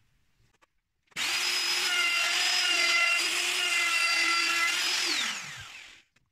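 Electric router starts about a second in and runs at full speed for about four seconds, cutting around a circle on a centre pin. It is then switched off, and its whine falls as the motor winds down.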